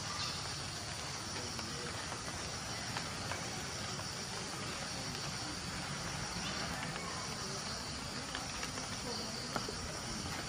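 Steady, high-pitched insect chorus over a low, even background rumble, with a few faint clicks.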